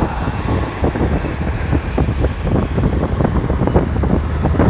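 Wind buffeting the microphone of a motorbike rider at speed, a dense, rough rumble that flickers rapidly, with the bike's running and road noise underneath.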